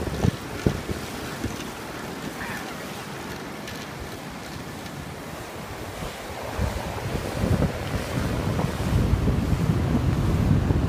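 Wind buffeting the microphone over the steady wash of ocean surf, with a couple of brief knocks near the start. The low wind rumble grows stronger in the second half.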